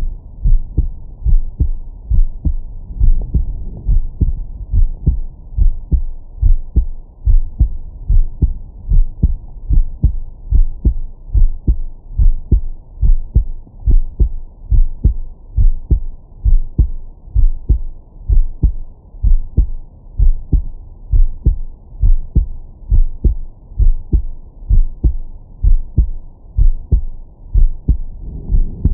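A man's heartbeat through a Stemoscope digital stethoscope held on the chest: a steady run of deep lub-dub beats, loud and clear with a strong bass. Nothing sounds above about 1 kHz, the ceiling of the scope's 20–1000 Hz filter.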